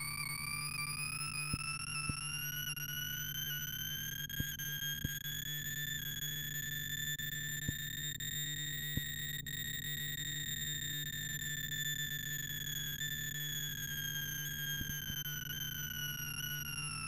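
Sorting-algorithm sonification from ArrayVisualizer: a synthesized tone whose pitch follows the array value under the sweeping marker. Its pitch rises slowly, peaks about halfway through and then falls, tracing the bell-shaped curve of the input as Unbalanced Tree Sort reads across it.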